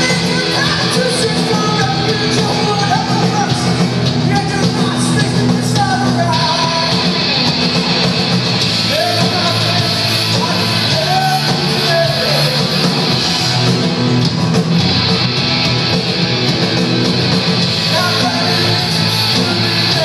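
Punk rock band playing live: distorted electric guitars and drums with a singing voice over them, loud and unbroken.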